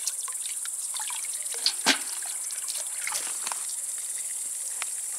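Water splashing and trickling in a galvanized tub as gutted crucian carp are rinsed by hand, with a sharp knock about two seconds in. Insects in the grass keep up a steady high-pitched chirring throughout.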